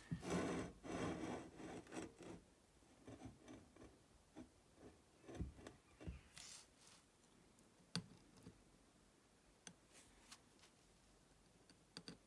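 Gloved hands handling solder wire and laying it on a brass cartridge case on a stone tile: faint rustling and scraping, busiest in the first couple of seconds, then scattered small clicks and taps, with one sharp click about eight seconds in.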